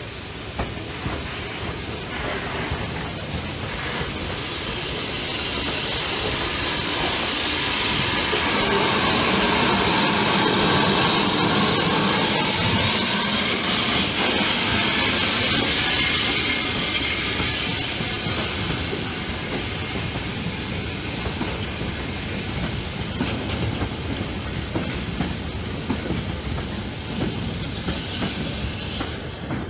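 Steam locomotive and a goods train passing close by: hissing steam and running noise build to their loudest about ten seconds in as the engine goes past, then the wagons roll by with a steady clickety-clack of wheels over the rail joints.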